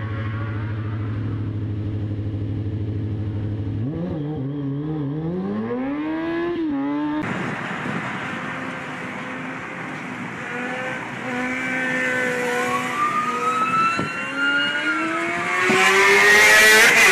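Motorcycle engine running steadily, then revving up and down a few seconds in. After a cut, a vehicle engine heard from inside a car's cabin speeds up, rising in pitch and getting loudest near the end.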